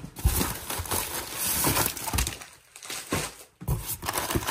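Tissue paper, plastic bags and cardboard rustling and crinkling as a hand rummages in an open cardboard box, with irregular scrapes and light knocks.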